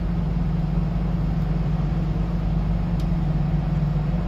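Diesel engine of a Sunward rotary bored-piling rig running steadily with an even, low hum, and one faint click about three seconds in.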